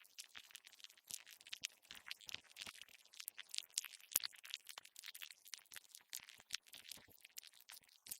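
Insects making a dense, irregular run of small clicks and crackles, many each second and mostly high-pitched, with no steady chirp or buzz.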